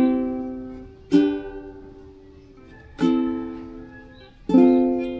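Cordoba UP100 ukulele strummed one chord at a time, each left to ring out. Three strums fall about a second and a half apart, with the end of a previous chord still ringing at the start.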